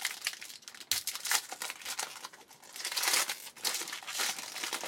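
Foil wrapper of a baseball card pack being torn open and crinkled, a run of sharp crackles and rips.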